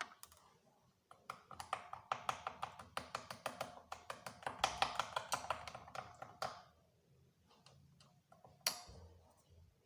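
A spoon stirring a mixture in a glass, clinking quickly against the sides about five or six times a second for several seconds, then one last sharp clink near the end.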